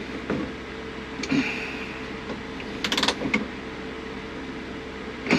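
Car interior parts being handled and fitted: a few short bunches of clicks and rattles and a brief creak, over a steady hum.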